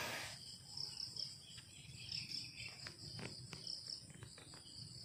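Faint, steady chirring of crickets, a high pulsing trill, with a few soft clicks about one to three seconds in.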